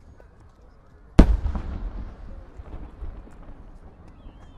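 An aerial firework shell bursting: one loud boom about a second in, followed by a low rumbling echo that fades over a second or two, with faint crackles after it.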